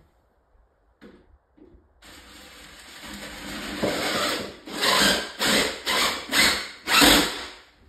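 Cordless drill driving a cabinet screw through a wall cabinet's bottom flange into the wall. The drill starts about two seconds in, then runs in a string of short trigger bursts as the screw goes in.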